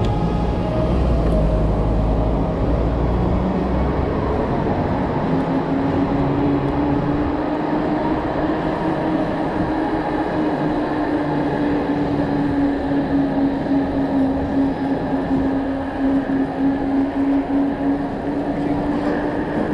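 Electric bike riding at a steady speed: its motor gives a steady, slightly wavering whine from about five seconds in, over rumbling wind and road noise.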